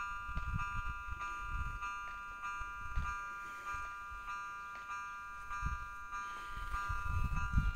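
Level-crossing warning bell ringing steadily, the signal that a train is approaching. Wind rumbles on the microphone in gusts.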